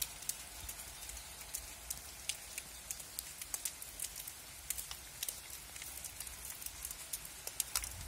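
Rain falling on leaves and ground: an irregular patter of many small drop ticks over a soft steady hiss.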